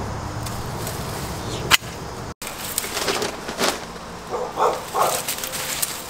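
Corona loppers cutting through woody shrub stems: one sharp, loud snap about two seconds in, then lighter clicks and rustling of leaves and branches. A few short pitched calls come just past the middle.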